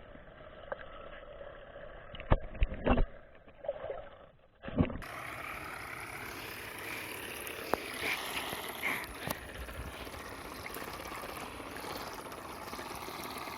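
Water noise with several sharp knocks and clicks between about two and five seconds in.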